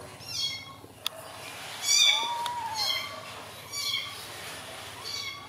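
A young black-and-white kitten mewing in short, high-pitched cries, five times, the second the loudest. It is wet and crying from the cold.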